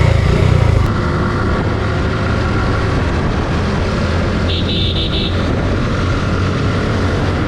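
Suzuki Gixxer 155 single-cylinder motorcycle engine running steadily under way, louder in the first second or so. A brief high-pitched sound comes about four and a half seconds in.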